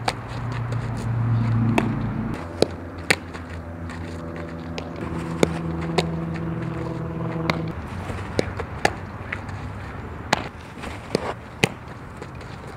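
Sharp, separate knocks and pops from a softball fielding drill, as balls are hit and caught. Under them a steady low hum stops about eight seconds in.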